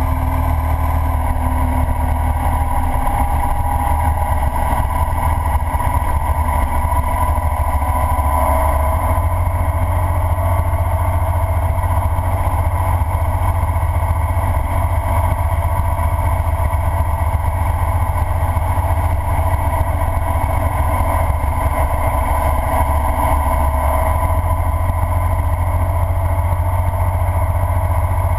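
Ural sidecar motorcycle's boxer-twin engine running steadily at road speed, with wind rumbling on the camera mounted on the sidecar.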